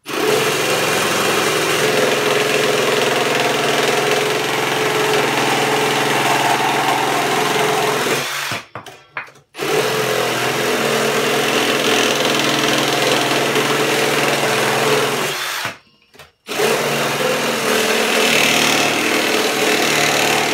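Cordless drill boring holes into a wooden board, running at a steady speed in three long runs. It stops twice, about 8 and 16 seconds in.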